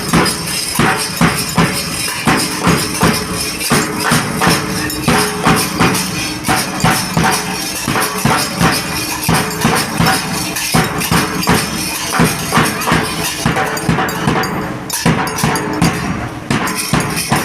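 Music with a quick, steady percussive beat and jingling percussion, starting and stopping abruptly.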